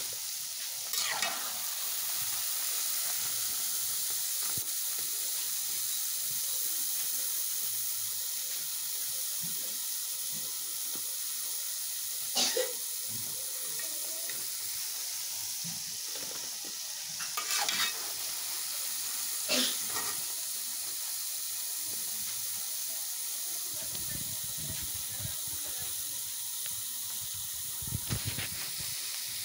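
Small dough pieces for daddies (chin chin) deep-frying in hot oil, with a steady sizzle. A metal slotted spoon knocks and scrapes against the metal pan about five times as golden-brown pieces are lifted out.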